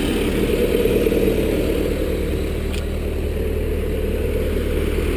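Vermeer SC60TX stump grinder's engine running steadily, just after its radio remote link has dropped out again.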